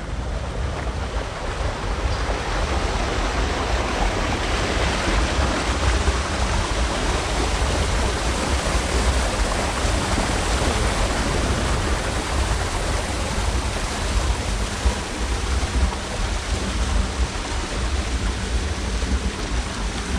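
Wind blowing over the microphone: a steady rushing noise with a gusty low rumble.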